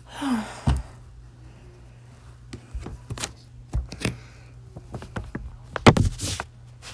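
Scraping and picking at transfer tape and paper residue stuck to a strong-grip Cricut cutting mat: irregular taps, knocks and short scrapes against the plastic mat, the loudest cluster about six seconds in.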